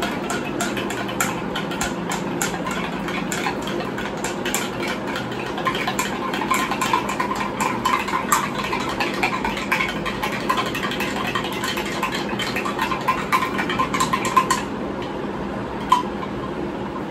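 A spoon stirring salt into water in a glass jug, a quick run of small clinks and scrapes against the glass as the salt dissolves, which stops about two seconds before the end. Under it runs a steady low hum.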